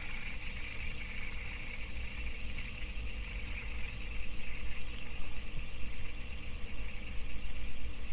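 Handheld fidget spinner whirring steadily on its centre bearing as it spins between the fingers.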